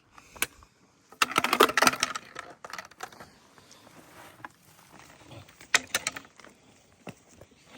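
A hiker's footsteps and trekking-pole taps on a rocky trail: clusters of sharp clicks and scrapes, loudest about a second in, with smaller bursts later.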